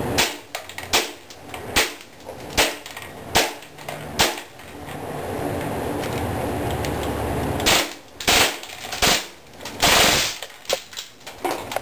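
KSC Glock 18C gas blowback airsoft pistol firing. It fires six single shots about 0.8 s apart, then pauses. From about eight seconds in come a few more shots, then a short, louder burst around ten seconds and some lighter clicks.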